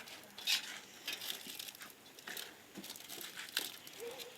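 Packing material being handled and cut away from a new sewing machine: wrapping crinkling and rustling in short irregular bursts, with light clicks.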